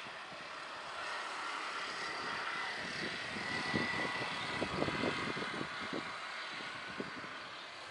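Jet airliner's engines passing overhead during take-off: a loud rush that grows to a peak about halfway through, with a faint whine at the top, then fades.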